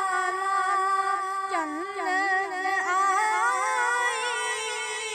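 A boy's high voice singing a naat with no instruments: long held notes decorated with quick wavering turns.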